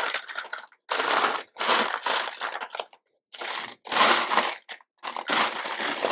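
Hand rummaging through loose LEGO parts, a scratchy rustle and clatter in about six short bursts roughly a second apart.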